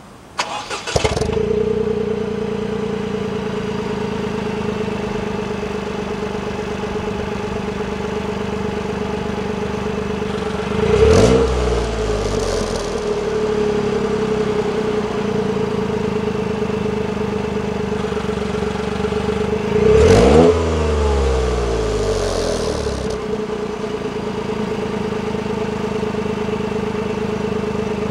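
Toyota GR Yaris three-cylinder engine breathing through a Fujitsubo Legamax Premium aftermarket muffler: it starts about a second in and settles to a steady idle. It is blipped twice, each rev rising sharply and falling back to idle.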